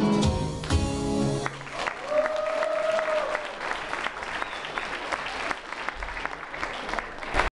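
An acoustic guitar strums the last chords of a song. About a second and a half in it stops and audience applause takes over, with one drawn-out shout from a voice early in the clapping.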